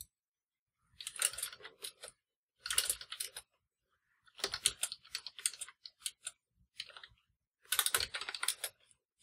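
Typing on a computer keyboard: rapid keystrokes in four or five short runs with brief pauses between them, as commands are typed at a terminal prompt.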